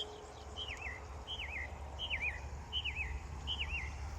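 A songbird singing a repeated phrase: about six clear whistled notes in a row, each sliding down in pitch with a wobble, evenly spaced under a second apart. A steady low rumble runs underneath.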